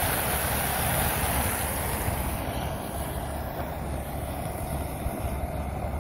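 Floodwater rushing steadily down an unclogged street storm drain, mixed with wind rumbling on the microphone.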